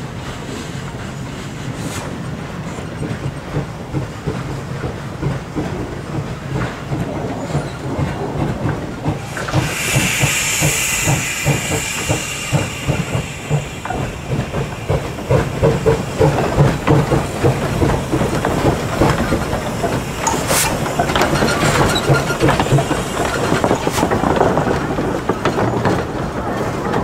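Narrow-gauge steam tank engine (a 1927 Vulcan 0-4-0T) working with its cars: a steady rumble, a burst of steam hiss for a few seconds about ten seconds in, then louder rapid pulsing as it moves, with two sharp clanks in the second half.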